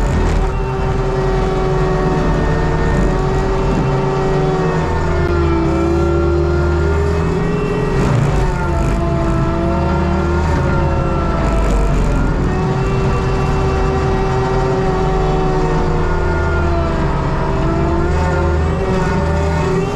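ASV RT-120 compact track loader's diesel engine running at high revs, driving a Fecon forestry mulcher head as it grinds brush and debris. The drum's whine sags in pitch as it takes load and comes back up, several times.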